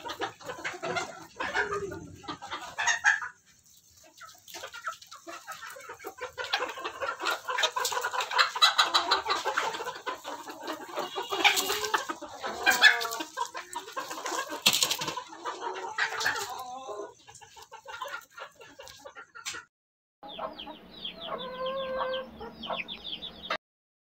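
A flock of chickens clucking and squawking in a busy, overlapping chorus, with sharp clicks mixed in. The calling thins out after about 17 seconds. After a brief silence, a different steadier pitched sound runs for about three seconds and stops abruptly.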